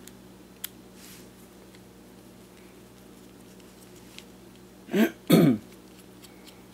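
A man clears his throat twice, about five seconds in. Around it, a few faint clicks from a small Phillips screwdriver backing out tiny screws.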